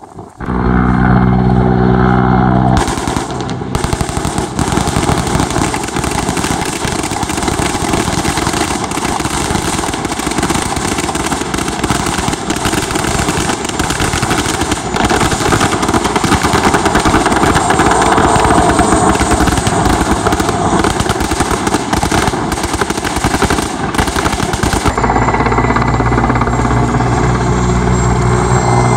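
Mil Mi-8-family military transport helicopter flying low overhead: a steady turbine and rotor hum, with a rapid, hard rotor beat through most of the middle as it passes close.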